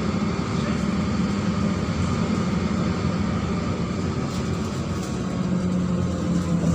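Neman city bus engine running with a steady low drone, heard from inside the bus, over road and cabin noise.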